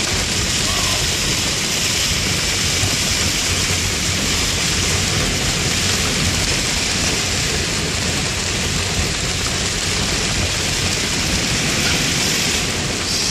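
Steady rush of heavy rain and water on a moving car, heard from inside the cabin while driving along a flooded road.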